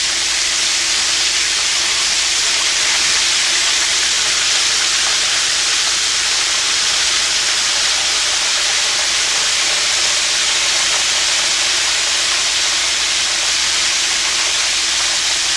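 Floured chicken pieces deep-frying in hot oil in a cast iron skillet: a loud, steady sizzle.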